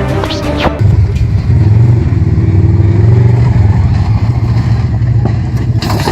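An off-road vehicle's engine running loud and steady at a low pitch. It cuts in abruptly about a second in, as a snatch of music ends.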